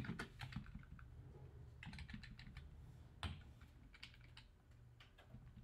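Faint typing on a computer keyboard: irregular short runs of keystrokes with pauses between them.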